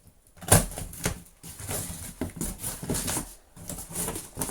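A cardboard delivery box being opened by hand: flaps, tape and packing rustling and crackling in irregular bursts, with a sharp knock about half a second in.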